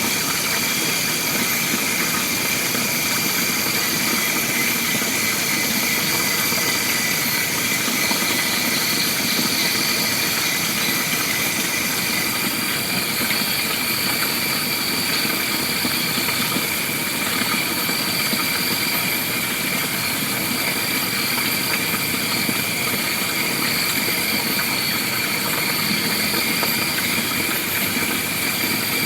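Steady chorus of forest insects, an unbroken high-pitched drone made of several held tones over a dense hiss.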